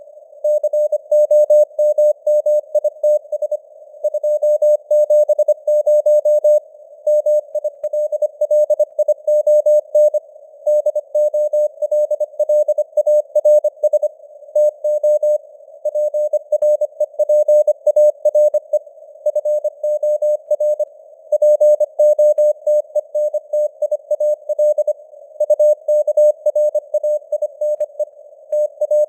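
Morse code (CW) sent at 25 words per minute as a mid-pitched keyed beep in quick dots and dashes, with short pauses between words. Simulated radio band noise hisses around the tone, and the signal strength fades up and down (QSB).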